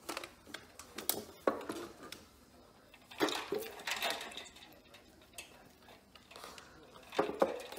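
Ice cubes clinking and clattering against a stainless steel water bowl as a puppy paws at them in the water. The clatters are irregular, a few in the first second and a busier run about three seconds in.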